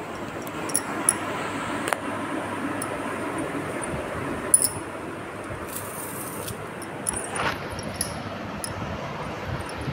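A few short, sharp metallic clinks, scattered irregularly, over a steady low hiss.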